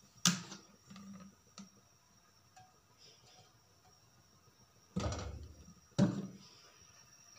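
Metal cookware clanking as a non-stick pan and a bottle are handled: a sharp clank just after the start, a few softer knocks over the next second or so, then two loud clanks about five and six seconds in, each ringing briefly.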